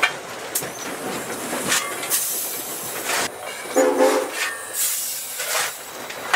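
Cab noise of a Southern Railway 2-8-0 steam locomotive under way: a steady rush of steam and running noise with irregular clanks, while coal is shovelled into the firebox. A short pitched squeal about four seconds in.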